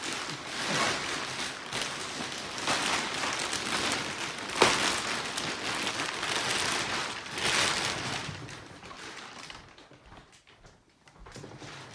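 Thin plastic wrapping crinkling and rustling as it is pulled off a foam mattress, with one sharp crackle about halfway through, dying away near the end.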